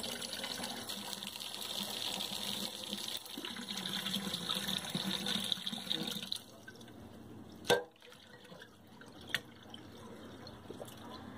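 Kitchen faucet running into a glass standing in a water-filled sink, the stream spilling over into the sink water, until it stops about six seconds in. After that, a sharp knock and a smaller one later as a hand reaches into the water.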